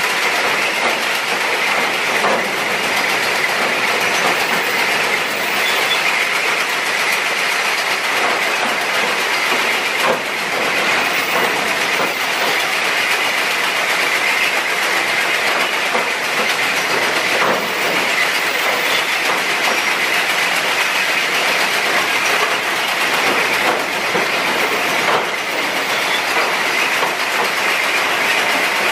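Railway track-laying machine at work: a loud, steady mechanical din, with a few metallic clanks spread through it.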